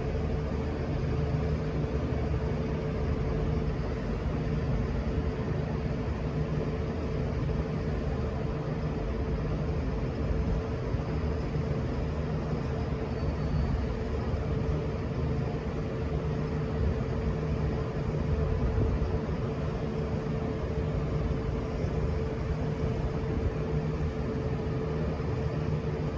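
Diesel train engine idling steadily: a low rumble with a constant whine above it.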